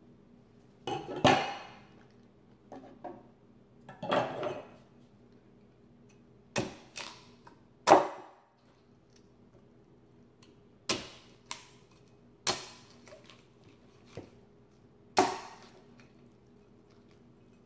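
Dishes and utensils clattering as they are handled: about a dozen separate clinks and knocks at irregular intervals, the loudest a little past the middle, over a faint steady hum.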